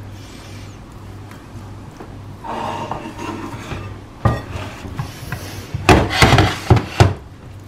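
Silicone spatula scraping and pressing cooked cauliflower florets in a baking dish, with a sharp knock a little past halfway and a cluster of louder knocks near the end.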